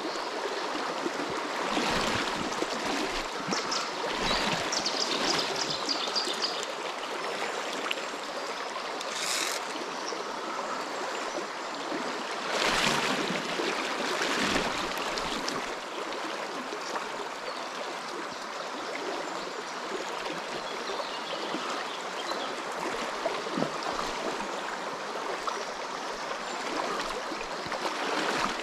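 Shallow trout river flowing over a stony riffle: a steady rush of water that swells briefly a few times.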